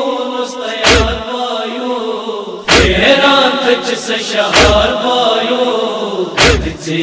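Male voices chanting a Kashmiri noha lament, with the mourners beating their chests together in time: a heavy thump about every two seconds, four in all.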